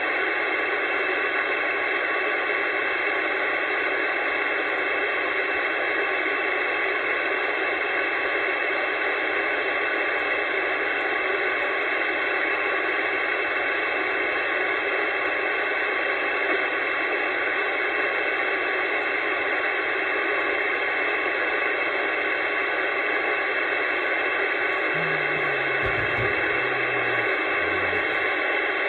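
Steady static hiss from a CB radio's speaker, with no station coming through: band noise on an open channel. A few faint low tones show through near the end.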